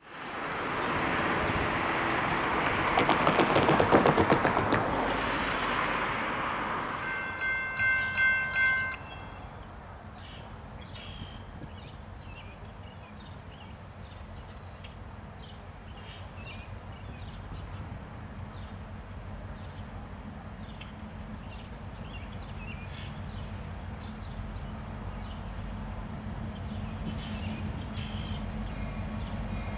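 A loud rushing train rumble with fast clatter for the first several seconds, then a multi-chime diesel locomotive horn sounding about four short blasts around eight seconds in. After that a quieter low diesel rumble from the approaching Union Pacific freight locomotives slowly builds, with birds chirping.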